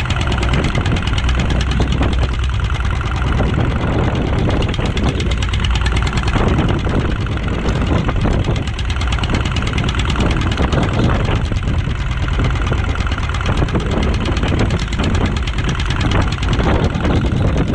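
Small boat's engine running steadily with a low knocking beat, mixed with the rushing hiss of wind and heavy rain.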